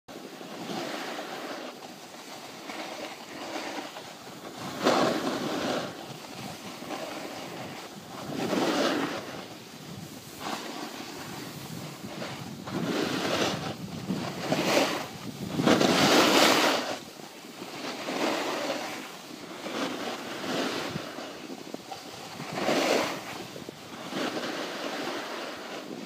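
Snowboards sliding and scraping on groomed snow, a steady hiss that swells and fades every few seconds, with wind buffeting the microphone.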